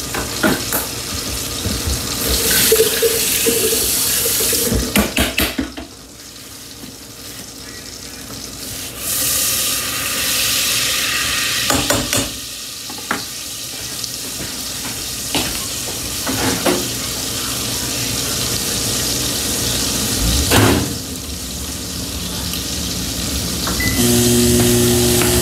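Kitchen work at the stove: stretches of hissing that start and stop, with a few sharp clinks and knocks of pots and utensils.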